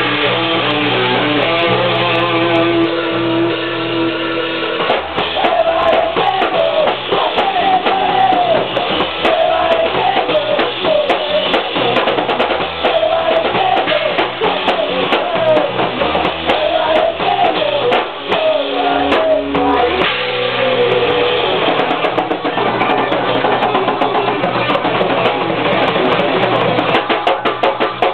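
Rock band playing live: a drum kit with electric guitar and bass, loud and steady, with a wavering melodic lead line through the middle stretch.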